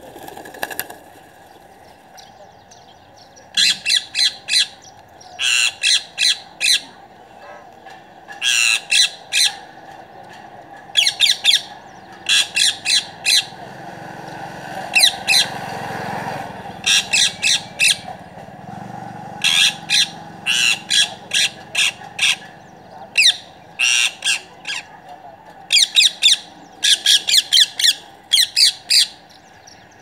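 Rose-ringed parakeets calling: quick runs of two to five sharp, shrill screeches, repeated every second or two from a few seconds in.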